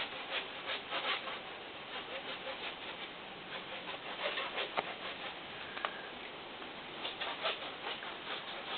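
Irregular rustling and crackling of brush and twigs, a scatter of small snaps and rubs as someone pushes through dense, wet undergrowth.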